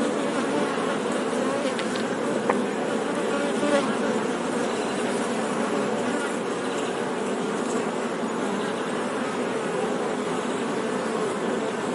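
Many honey bees buzzing together in a steady, dense hum of overlapping wingbeat tones, with two brief ticks or taps a little over a second apart.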